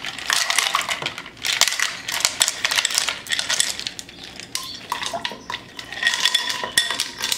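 Ice cubes poured from a bowl into glass pitchers of liquid, clattering and clinking against the glass. There are two pours, the second starting about six seconds in.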